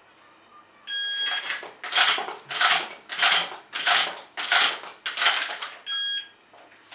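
A shot timer beeps to start, then shotgun shells are shoved one after another into the tube magazine of a Benelli Supernova pump shotgun in a fast, even rhythm, about seven loud strokes, before the timer beeps again about five seconds after the first.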